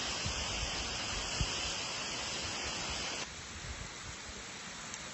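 Steady rushing of water from an iced-over mountain waterfall, with low rumbles of wind on the microphone. About three seconds in, the rush abruptly becomes quieter and duller.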